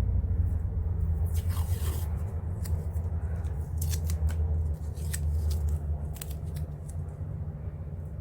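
Fingernail picking and scratching at a roll of washi tape to find its loose end: a short scratchy rasp, then several separate small clicks. A steady low hum runs underneath.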